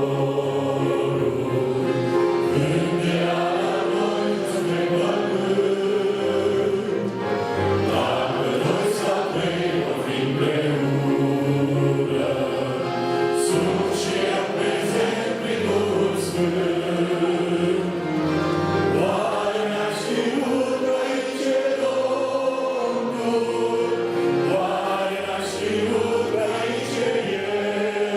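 Church choir singing a Romanian hymn in several-part harmony, with long held notes.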